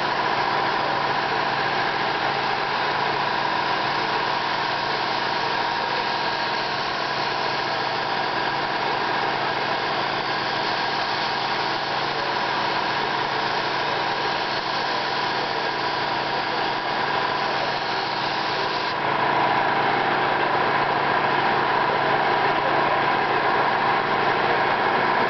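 Steady hiss and hum of compressed-air spray-painting equipment: an air-fed spray gun spraying paint onto a panel, with a motor running underneath. The hiss grows a little louder about three-quarters of the way through.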